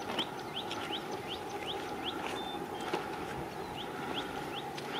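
A bird repeating a short rising chirp, about two or three a second with a pause in the middle, over a steady background rumble.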